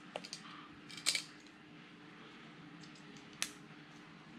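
Small plastic clicks and taps as a GoPro MAX camera and its battery are handled and the battery is fitted. There are a few light clicks at the start, a sharper click about a second in and another about three and a half seconds in.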